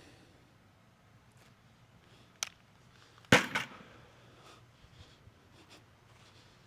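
A baseball popping into a leather 11.5-inch infield glove: one sharp, loud pop about three seconds in with a quick echo, after a lighter click a second earlier.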